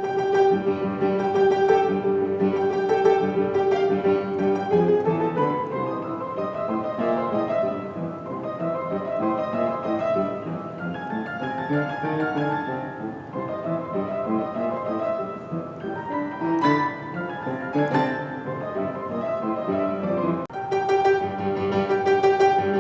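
Grand piano played as a duet by two pianists on one instrument, a continuous classical-style piece with chords and a moving melody.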